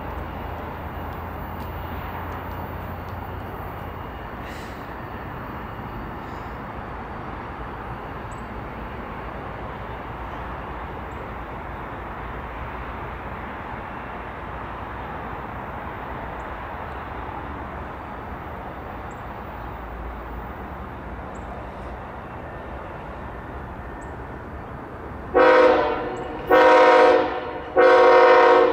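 CSX diesel freight locomotive's multi-chime air horn sounding three blasts as the train approaches, each about a second long, the last still sounding at the end. Before the horn there is only a steady background rumble.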